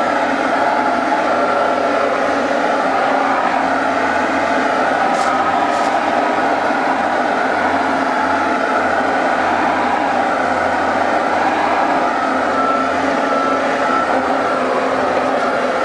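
Case 325 articulated haul truck's diesel engine and drivetrain running steadily under a load of ash, heard from inside the cab while it drives over rough, rutted ground. Two faint clicks come about five seconds in.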